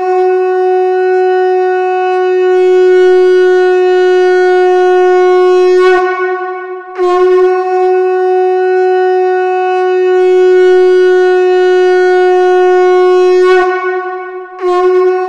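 Conch shell (shankha) blown in long, steady, single-pitched blasts. The first breaks off about six seconds in, a second lasts about six and a half seconds, and a third begins near the end.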